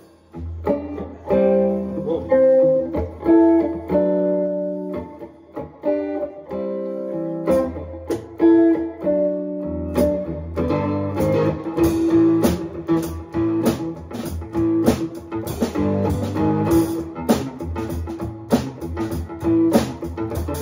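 Band rehearsal: a guitar plays a riff of picked notes, and a full drum kit with cymbals comes in about halfway through, keeping a steady beat under it.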